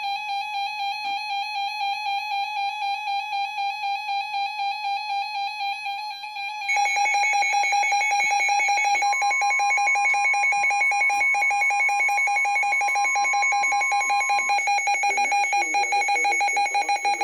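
Weather alert radio alarm tones sounding for a new warning. A warbling alarm tone is joined about seven seconds in by a second, louder, rapidly pulsing alarm, with a steady single tone underneath for several seconds in the middle.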